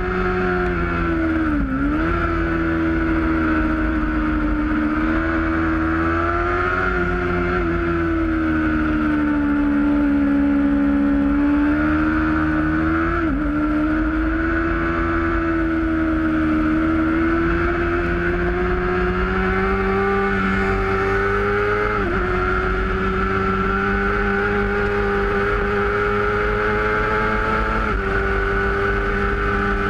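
Race motorcycle's engine running at high revs, heard from a camera mounted on the bike, with wind rush under it. The engine pitch holds steady, rising and falling slowly, and dips sharply about four times at gear changes.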